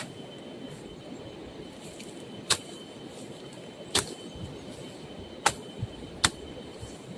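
Four sharp swishing strikes of a blade slashing through grass and brush, spaced about a second and a half apart, the last two closer together, over a faint steady outdoor hiss.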